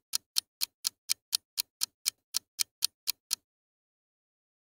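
Ticking clock sound effect counting down a guessing pause, about four sharp ticks a second, which stop abruptly about three and a half seconds in and leave silence.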